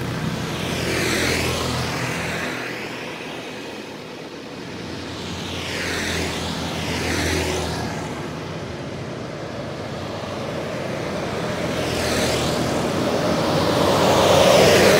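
Road traffic: motorcycles and cars passing one after another, each pass swelling and fading. The loudest pass comes near the end as a car goes by.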